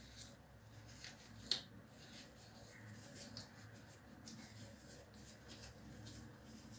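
Faint rustling and crinkling of tissue paper being torn and twisted in latex-gloved hands, with scattered light clicks and one sharp click about a second and a half in.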